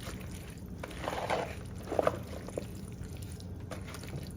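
Dressed pasta salad being tossed and stirred in a bowl: wet, squishing mixing sounds in a few uneven strokes, loudest about two seconds in, over a low steady hum.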